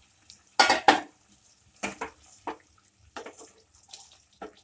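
A cooking spoon clattering and scraping against a metal cooking pot: two loud knocks about half a second in, then lighter knocks and scrapes about every half second as the curry is stirred after water is added.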